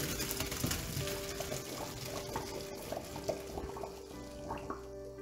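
Boiled pasta and its hot water poured from a pot into a stainless steel colander in a steel sink: a rush of splashing, draining water with small knocks of pasta and metal. The pour thins out about four seconds in.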